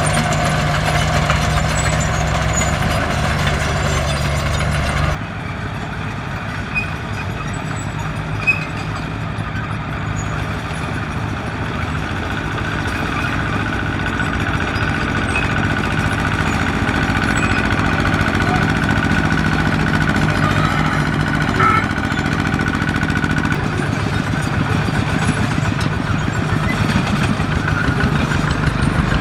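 Diesel engines of heavy earthmoving machines running steadily, with an abrupt change in the engine sound about five seconds in and again near the end.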